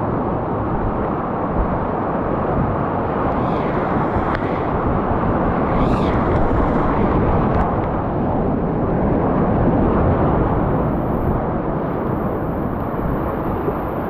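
Whitewater rapids rushing loudly and steadily around a kayak, heard close to the water from the boat as it runs through the foaming river.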